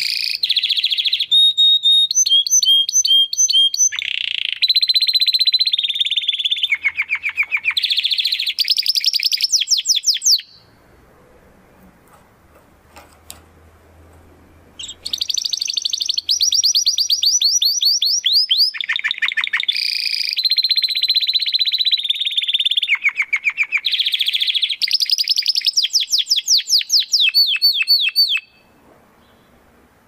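Domestic canary singing long phrases of rapid trills and rolls, high and bright. The song breaks off for a few seconds near the middle and stops shortly before the end.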